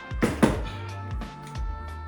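Background music with a steady bass line and a regular beat, with two sharp hits in the first half second, the loudest moments.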